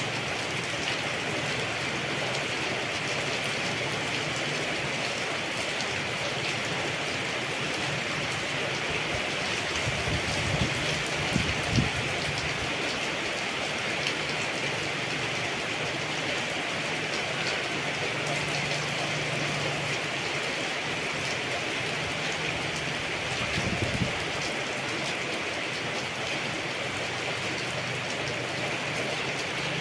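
Steady rain falling, an even hiss of drops. There are a few short low thuds about ten to twelve seconds in and again a little past the middle.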